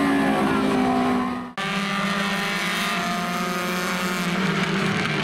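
Several race car engines running at speed on an oval track, their tones held fairly steady. The sound drops out abruptly for an instant about one and a half seconds in, then the engines carry on.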